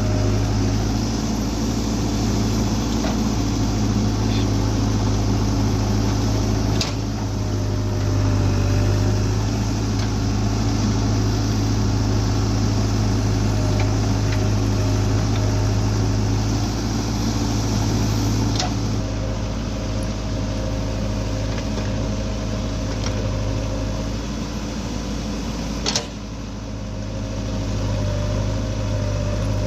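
Diesel engine of a JCB 3DX backhoe loader running steadily under work, a low hum with a faint whine over it, broken by a few sharp clanks, the loudest near the end.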